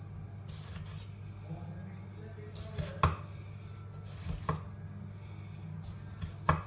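Chef's knife slicing through a ripe tomato on a wooden cutting board, with three sharp knocks of the blade on the board, the first about three seconds in and the loudest. A steady low hum runs underneath.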